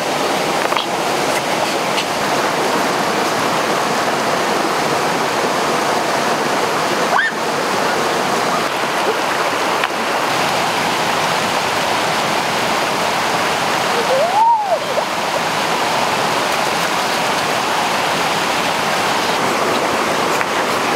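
Steady rushing of a rocky stream and waterfall, an even water noise throughout.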